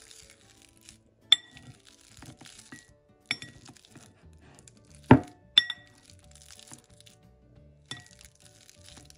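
Metal potato masher squishing ripe bananas in a glass bowl, with five sharp clinks where the masher strikes the glass and it rings briefly; the loudest knock comes about five seconds in.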